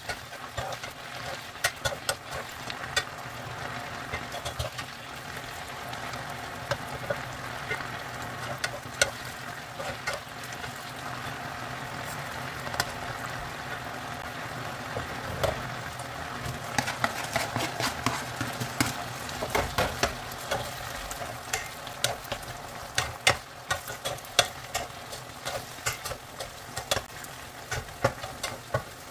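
Chicken breast pieces sizzling in a nonstick frying pan while a plastic spatula stirs them, scraping and knocking against the pan. The knocks come more often in the second half.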